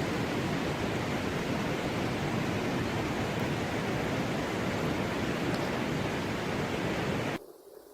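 Steady, loud rushing noise that cuts off suddenly near the end, leaving a faint hiss.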